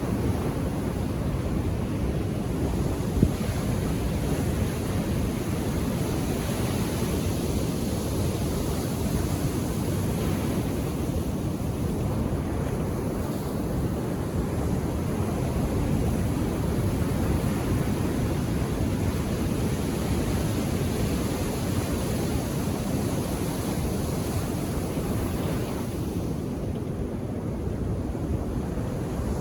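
Calm ocean surf washing onto a beach: a steady, continuous wash of waves that swells and eases slightly, with no distinct single breaks.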